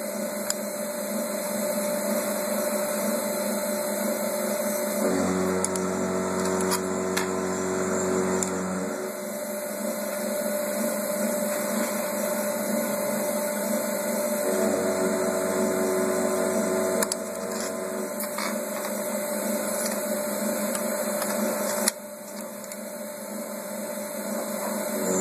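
Steady electrical hum from a powered-on Juki LK1900 industrial bartacking machine, with a lower drone that comes in and drops out twice. A few sharp clicks, one near the start and others further on, as the clamp's screws are worked out with a screwdriver.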